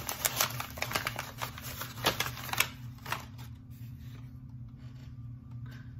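Packaging crinkling and rustling by hand as a small advent-calendar gift is unwrapped: a quick run of crackles for the first two and a half seconds, then only an occasional tick.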